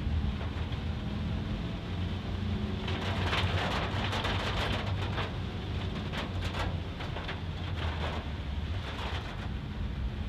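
A car driving in heavy rain: steady low engine and tyre drone with rain hissing and pattering on the car, the rain noise swelling for a couple of seconds a few seconds in.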